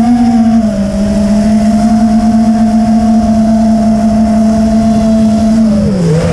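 FPV quadcopter's electric motors and propellers whining at a steady, high throttle, the pitch dipping briefly near the end as the throttle eases during a banking turn.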